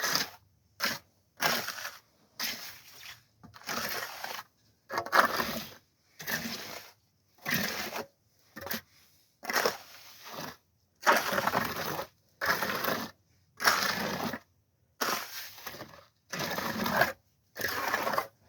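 A trowel scraping across freshly poured, still-wet concrete to finish the surface of a pier footing: a series of short gritty strokes, roughly one a second, with short pauses between them. The concrete is soggy for finishing.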